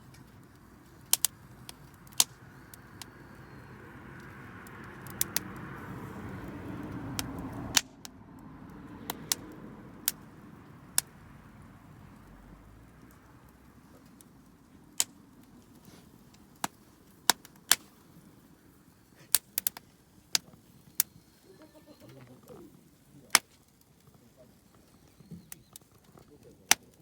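Wood campfire crackling, with sharp irregular pops and snaps. A rushing sound swells over several seconds and cuts off suddenly about eight seconds in.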